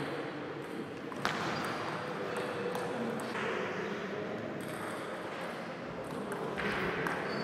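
Table tennis ball giving sharp, scattered clicks off the bat and table, a few of them spaced about a second apart, with one loud click just over a second in.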